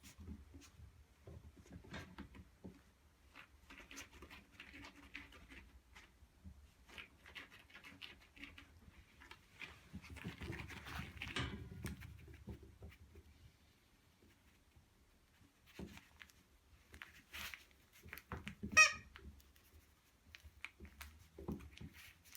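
Puppies shuffling and scrabbling about with small scuffing and clicking noises. One puppy gives a single short, high squeal about three-quarters of the way through, the loudest sound.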